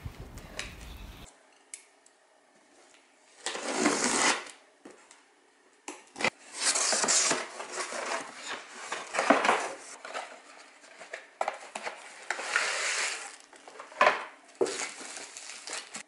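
Unboxing cookware: a cardboard box and its packaging rustling and scraping in repeated bursts as they are handled. Near the end come a couple of sharp clinks as a stainless steel pot and its lid are taken out.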